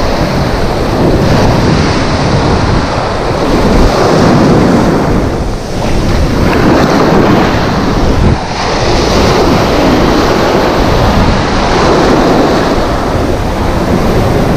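Surf breaking and washing in foam around the angler's legs in the shallows, a loud continuous rush that swells and eases every couple of seconds, with wind buffeting the microphone.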